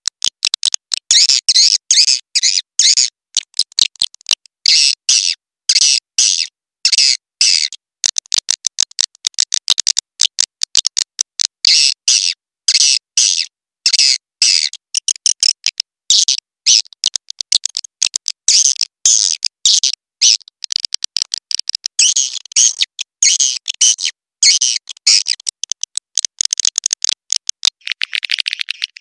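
Swiftlet call lure: recorded swiftlets chattering in dense runs of rapid, high twittering chirps and clicks, each run a second or so long with short gaps between, played to draw swiftlets into a nest house. Near the end the chattering gives way to a smoother, continuous sound.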